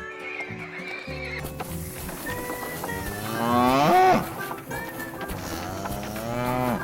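A cow mooing twice over background music: a louder call about three to four seconds in and a second one near the end.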